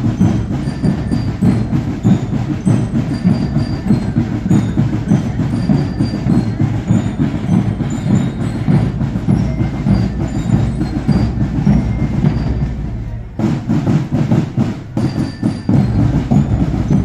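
Marching band music: drums beating a steady marching rhythm under a bright bell-lyre (glockenspiel) melody. The music drops out for a moment about thirteen seconds in, then carries on.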